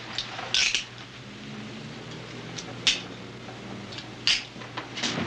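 Handcuffs being closed on a man's wrists: a few short, sharp clicks a second or two apart, over a steady low hum.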